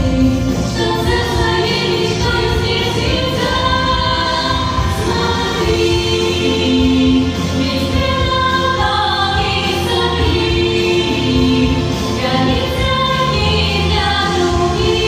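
A vocal group singing a song in unison or harmony over backing music, with long held notes.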